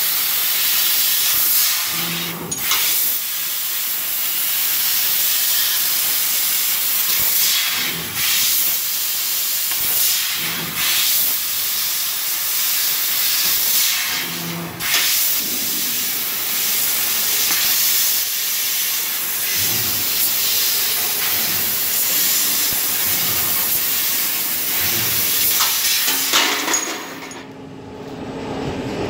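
Fiber laser tube cutter's cutting head hissing steadily: the assist-gas jet blowing through the nozzle as the beam cuts a square steel tube. The hiss breaks off briefly a few times between cuts and stops near the end, leaving a low machine hum.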